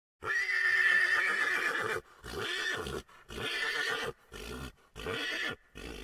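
An animal calling: one long, loud call of nearly two seconds, then five shorter calls in quick succession with brief gaps between them.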